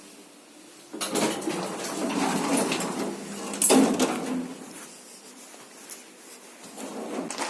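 Lift doors sliding with a rattling rumble over a low motor hum, ending in a loud clunk about four seconds in.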